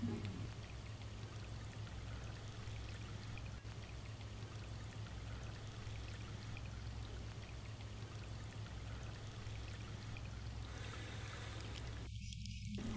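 Septic wastewater welling up out of a backed-up septic system and trickling steadily over gravel, with a low steady hum underneath. The overflow is the sign of a clogged, failing septic system.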